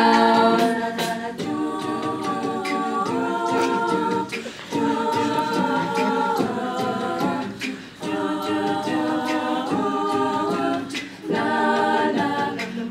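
All-female a cappella group singing held chords with no lead lyrics, the chord changing every second or two, with short breaks between phrases.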